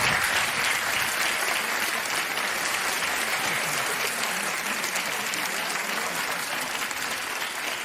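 Studio audience applauding steadily, the clapping fading slightly over the seconds.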